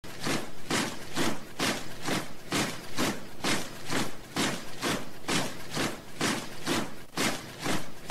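Tramp of many marching feet, a steady rhythm of about two crunching steps a second, as of a column of soldiers marching in step.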